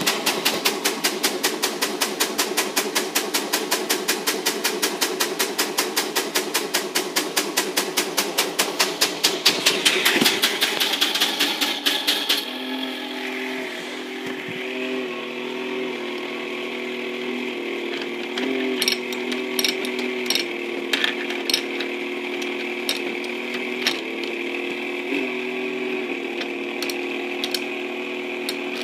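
Battery-powered Technofix 315 Gigant tin toy construction site running: a fast, even clicking of its mechanism, several clicks a second, that stops about twelve seconds in and gives way to a steady motor-and-gear whir with occasional clicks.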